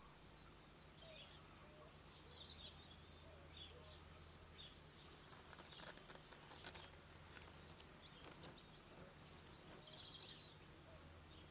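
Faint birdsong in woodland: several short, high chirps and a few brief trills from small birds, scattered throughout, with a few faint clicks and a steady low hum underneath.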